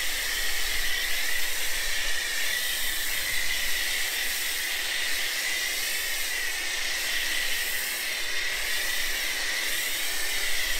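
Snow foam lance on a pressure washer spraying thick foam, set to its maximum: a steady hiss of spray with a high whistle running through it.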